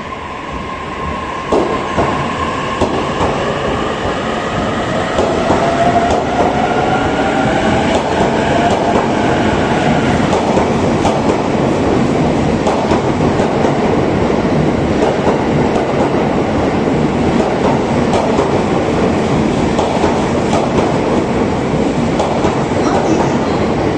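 E657-series electric express train pulling out and gathering speed, its traction motors whining in a pitch that rises over the first ten seconds. The running noise and wheel clatter grow louder over the first few seconds, then hold steady.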